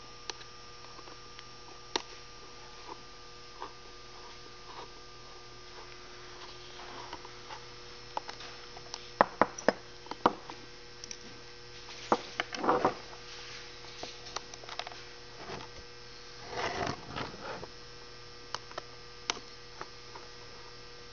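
Scattered clicks, taps and short scrapes of small metal parts being handled as the side screws and rollers are taken out of an Easyboot hoof boot, over a steady electrical hum.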